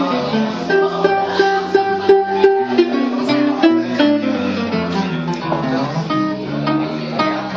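A jazz duo of guitar and bass playing live: a quick line of single plucked guitar notes over a bass part that moves from note to note.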